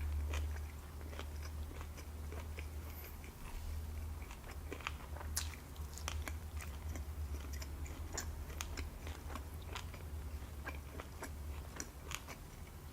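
Close-miked chewing of food, with many small mouth clicks scattered throughout, over a steady low hum.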